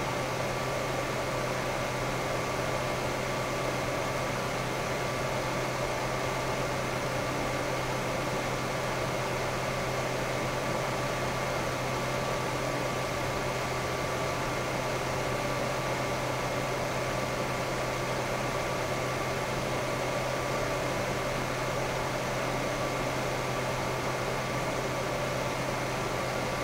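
Titan TFD-12025H12ZP 120 mm PC case fan running steadily: an even rush of air with a low hum and a few faint, steady whine tones.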